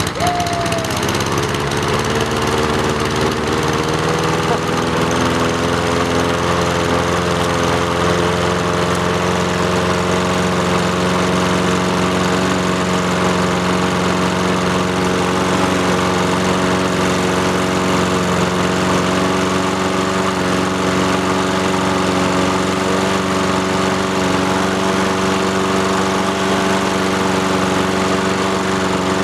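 Honda walk-behind lawnmower engine just after starting, running steadily. Its pitch settles in the first couple of seconds, then holds even.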